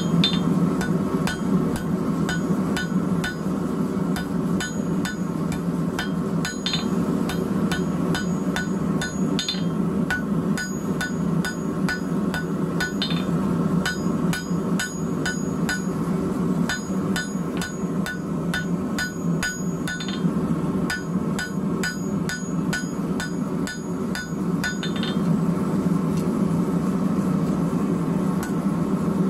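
Hand hammer striking a hot steel bar on an anvil, forging it in steady blows about two a second that stop about 25 seconds in, over a steady low drone.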